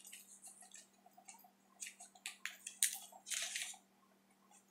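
Faint clicks and small handling noises as a liquid lipstick tube is opened and its applicator wand drawn out, with a short soft rustle about three and a half seconds in.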